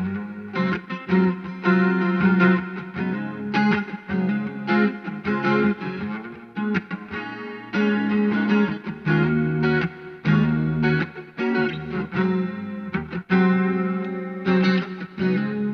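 Electric guitar played through an amplifier: a Jcraft T-1 Telecaster with Fleor Alnico V pickups into a Vox VT20X amp, picking a run of notes and chords.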